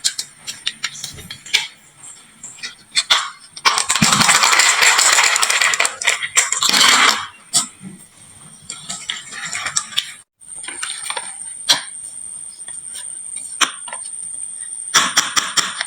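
Glass marbles rolling and clicking down a wooden marble run, with a dense, loud clatter of many marbles tumbling together in the middle. Scattered single clicks follow; the sound drops out briefly about two-thirds through, then a faint steady high tone sits under the clicks.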